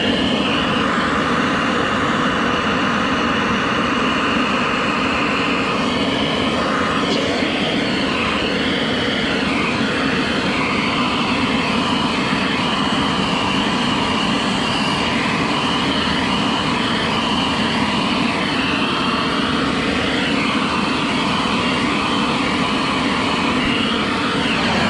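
Handheld gas blowtorch burning with a loud, steady roar, its flame played over steel to dry the moisture out of it.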